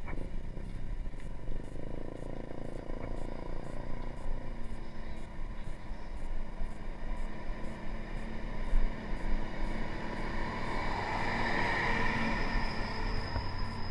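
Wind rumbling over a camera mounted on a moving bicycle, with traffic engines on the road; a passing vehicle swells louder near the end.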